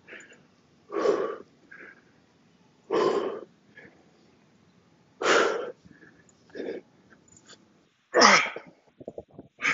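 A man's heavy breathing: loud, forceful exhales about every two seconds as he catches his breath between sets of kettlebell swings. The last, harder exhale comes near the end as he hikes the bell into the next swing, followed by a few short clicks.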